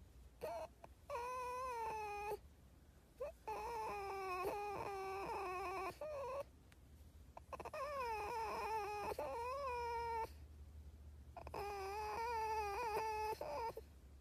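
Red fox whining in long, wavering, high-pitched calls, four drawn-out ones with a couple of short chirps between.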